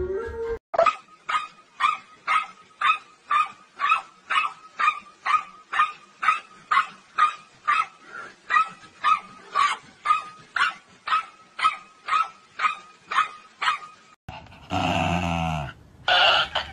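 A dog barking steadily, about two barks a second in an even rhythm, for some thirteen seconds.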